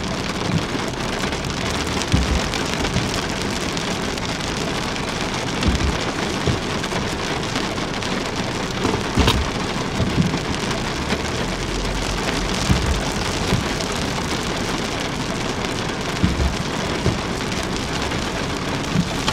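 Rain pattering steadily on the car's roof and windows, heard from inside the cabin, with a few soft knocks.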